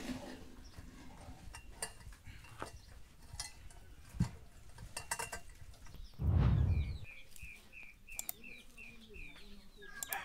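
Light metallic clicks and taps of wire against a square steel tube over the first few seconds. After a brief low thump, a bird chirps in a quick series of about eight evenly spaced notes, roughly three a second.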